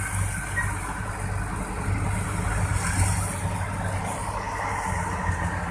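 Heavy diesel engine running steadily with a low hum.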